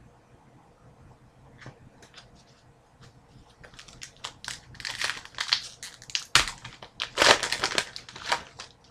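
Trading card pack wrapper being torn open and crinkled by hand: a run of crackling rustles building from a few seconds in and loudest near the end, with one sharp snap in the middle of it.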